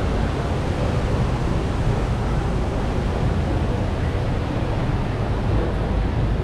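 Steady, even background noise of a busy shopping-mall interior, mostly a low rumble, with no distinct event standing out.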